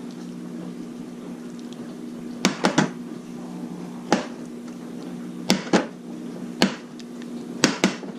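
Kitchen utensils clacking in sharp, irregular knocks, about nine of them in small groups starting about two and a half seconds in, over a steady low appliance hum.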